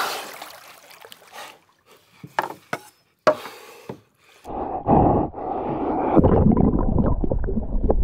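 Water splashing as a swimmer in a wetsuit breaks the surface, followed by a few small drips and knocks. From about four and a half seconds in comes a dense, muffled rumble and crackle of water heard underwater.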